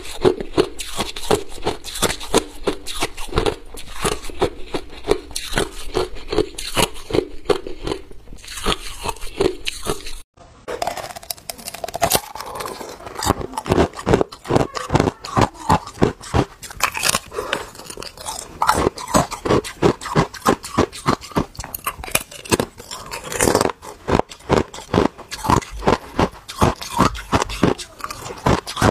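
Ice crunched between teeth close to the microphone: crushed ice chewed in even crunches about two to three a second, then after a short break about ten seconds in, irregular, louder crunches of hard clear ice bitten off a block.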